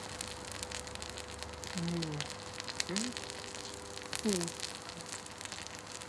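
Stalled dishwasher pump induction motor humming steadily on mains power with its rotor locked, its burning coil crackling and sizzling in the flames: the motor is burning out. A few short voice-like sounds come in the middle.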